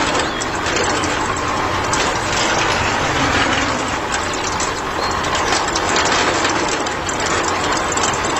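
Small geared motor of a DIY mini tractor running, with a continuous grinding rattle of gears.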